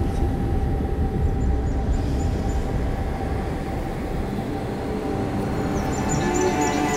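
A low, steady rumbling drone with a faint held tone over it. Sustained musical notes begin to enter near the end.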